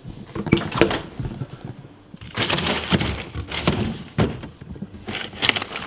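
A stainless steel fridge-freezer being opened and a freezer drawer pulled out: sharp knocks and clicks of the handle and door in the first second, then longer rattling, sliding noise from the drawer and its contents a couple of seconds in, with more knocks and another short rattle near the end.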